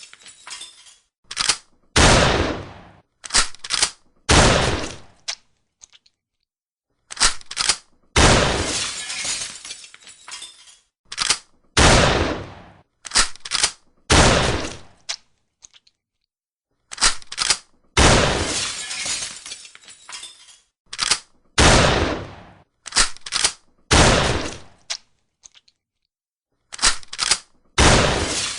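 Shotgun firing repeatedly, each blast trailing off over about a second, mixed with short, sharp clacks of the gun being reloaded. The shots and clacks come in clusters, with brief silent gaps between the groups.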